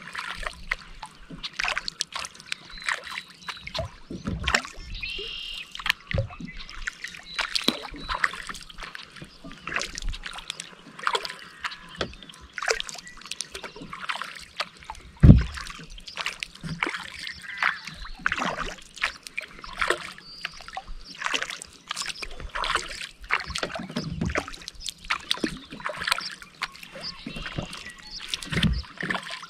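Kayak paddling on calm water: paddle blades dipping and water dripping and splashing in quick, irregular drops, with one louder knock about halfway through.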